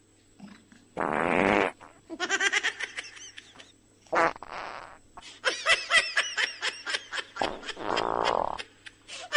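Farting sounds in three loud bursts, about a second in, around four seconds and near eight seconds, between runs of high-pitched squealing chirps from a young pet monkey.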